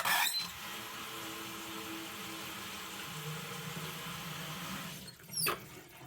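Bathroom sink faucet running water into the basin and down a newly fitted drain for about five seconds, testing it for leaks, then fading out, with a brief squeak shortly after.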